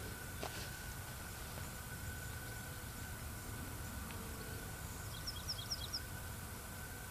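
Steady low outdoor rumble, with a small bird giving a quick run of about five short high chirps a little after five seconds in.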